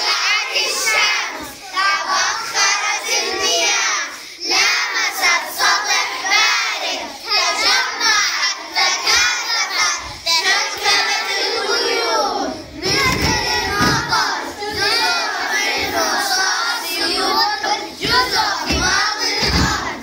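A group of young children singing together, many voices at once, starting abruptly. A few low thumps about two-thirds of the way through and near the end.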